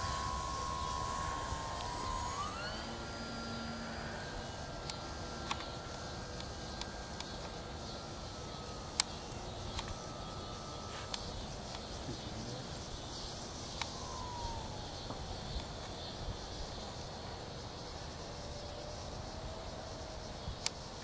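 RC model airplane's motor and propeller whining overhead. The pitch steps up about two seconds in, then slides down in stretches as the plane passes and moves away. Wind rumbles on the microphone, with a few sharp clicks.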